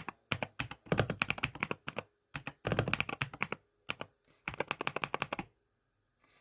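MK101 mechanical keyboard being typed on: quick runs of key clicks in four bursts with short pauses between them, stopping near the end.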